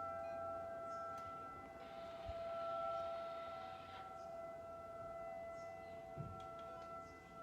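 Outdoor tornado warning siren sounding a steady tone during its monthly test, the loudness slowly swelling and fading, as a rotating siren does.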